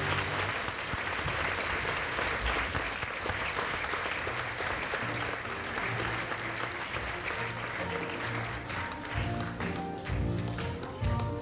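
Audience applauding, the clapping dying away about eight or nine seconds in, with instrumental music playing under it and coming through more clearly near the end.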